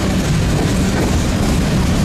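Train passing: a loud, steady rumble with no breaks.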